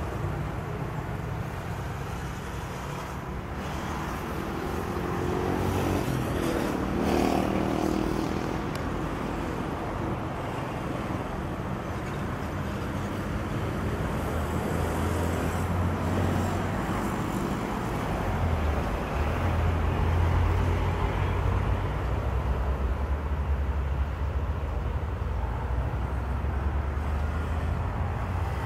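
Road traffic of motorcycles, cars and buses driving over a railway level crossing, engines running steadily, with a couple of brief clatters a few seconds in.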